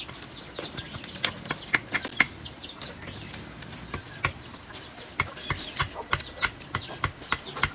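Roasted corn on the cob being eaten: irregular sharp crunching and snapping clicks of kernels being picked off and chewed, several in quick runs.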